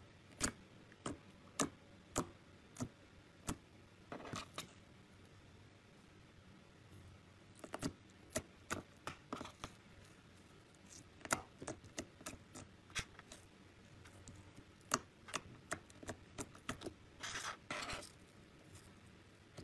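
Glossy slime being pressed and squished by fingers: irregular sharp sticky clicks and pops, with a couple of short crackly stretches.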